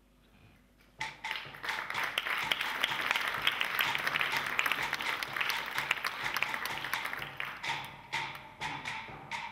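Audience applause that starts suddenly about a second in and dies down to scattered claps near the end.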